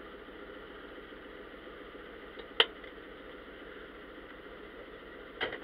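Steady running noise inside an idling tow truck's cab, with a sharp click about two and a half seconds in and a softer knock near the end.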